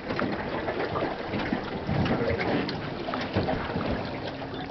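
River water splashing and lapping around a wading elephant and the boat, a steady wash of water noise broken by many small splashes and drips.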